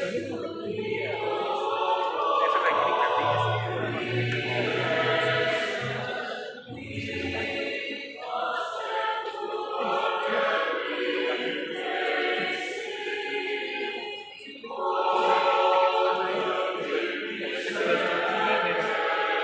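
Church choir singing together, a phrase at a time, with short breaks between phrases.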